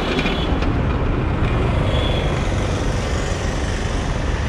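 Steady road-vehicle traffic noise, a continuous low rumble of passing motor vehicles.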